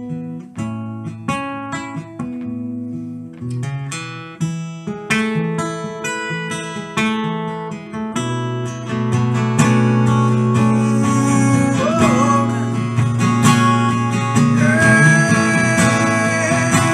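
Steel-string acoustic guitar played solo in an instrumental break: separate picked notes at first, then fuller, ringing strummed chords from about halfway.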